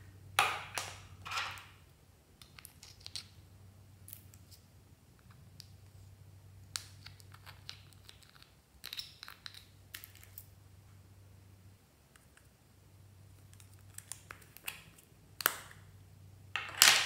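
Small plastic slime containers being handled: scattered clicks and taps, with short scraping as a small spatula scoops slime out of a plastic cup. A faint steady low hum runs underneath.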